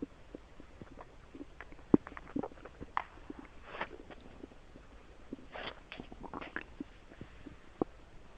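Human stomach and intestines gurgling: scattered short pops and bubbly gurgles, with a cluster of gurgles about five and a half to six and a half seconds in and a sharp click about two seconds in.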